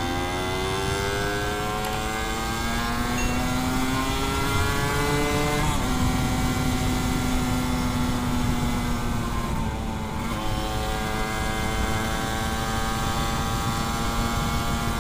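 Suzuki Satria 120 two-stroke single-cylinder engine under way, heard from the rider's seat: its pitch climbs for about six seconds, drops at a gear change, rises slowly again and dips at a second shift about ten seconds in. Wind rush runs underneath.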